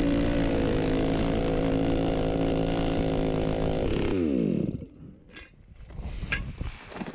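Small gas engine running steadily, then shut off about four seconds in, its pitch falling as it spins down. A few sharp clicks and some crunching follow.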